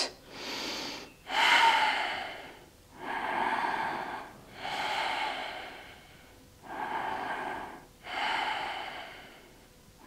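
A woman's loud breathing, in and out, about six breaths of a second or so each with short pauses between.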